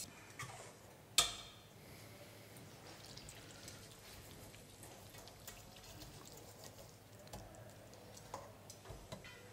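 Barbecue sauce being pressed through a metal kitchen sieve with a ladle, faint, with one sharp knock of metal about a second in and a few small ticks near the end.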